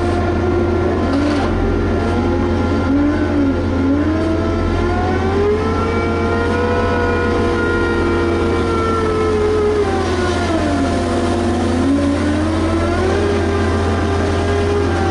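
Diesel engine of a Liebherr HS 8200 dragline excavator running over a steady low hum, its pitch climbing slowly, holding high, dropping about ten seconds in and climbing again near the end as the revs change with the work.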